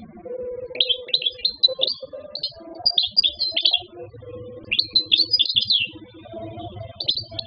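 Wild-caught European goldfinch singing in four bursts of quick high notes, over background music of sustained low tones.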